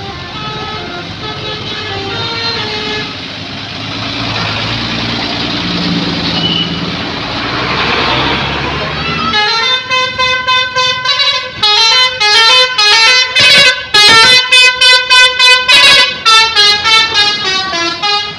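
Multi-tone 'telolet' musical horn of an Atarsyah Trans bus playing a tune of short, rapidly chopped notes, starting about halfway through and loudest from about two thirds in. Before it, vehicle noise swells steadily.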